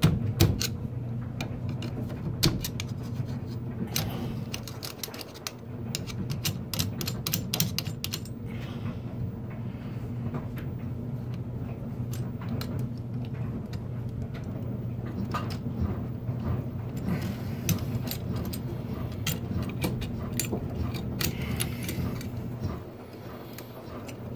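Small metallic clicks and rattles of a screwdriver, wires and flexible metal conduit being worked at a boiler circulating pump's electrical box as its supply wiring is disconnected. Most of the clicks come in the first eight seconds, over a steady low hum from a washer and dryer running.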